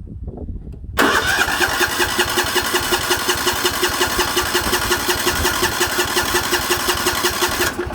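Sears 10/6 lawn tractor's engine turning over on its electric starter with the choke on, in an even beat of several pulses a second, without catching. It starts suddenly about a second in and cuts off near the end; it sounds like it is trying to start.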